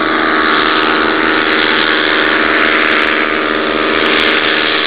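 Twin engines of a Lazair ultralight aircraft running steadily at a constant pitch.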